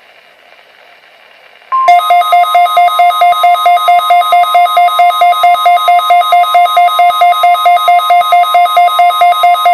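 NOAA Weather Radio 1050 Hz warning alarm tone, broadcast as part of a required weekly test: a steady high tone that starts about two seconds in after a moment of faint hiss. Over it, a loud electronic alarm beeps rapidly, about four beeps a second.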